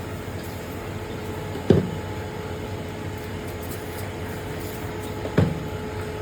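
Steady mechanical hum with a faint constant tone, broken by two sharp knocks about four seconds apart.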